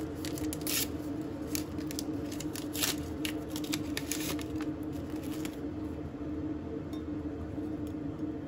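A paper tea-bag envelope being crinkled and torn open by hand, a rapid run of crisp rustles and rips over the first five seconds, then a few light ticks as the tea bag goes into a glass. A steady low hum from an appliance runs underneath.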